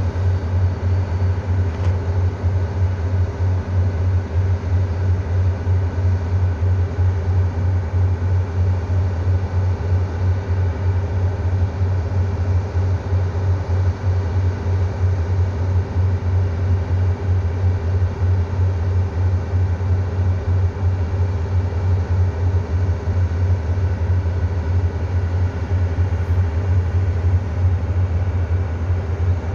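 Idling diesel train engine at a standstill: a steady low drone with a constant tone above it, unchanging.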